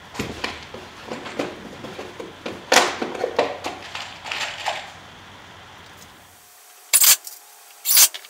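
Irregular knocks and rattles of screws and a tool being picked up and set against a wooden stop block on a workbench, then two short bursts of a cordless drill driving a screw into the block near the end.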